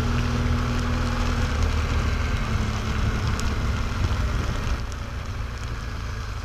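Motorcycle engine running at low speed under steady wind and rain noise on the microphone. The sound eases off about five seconds in as the bike slows.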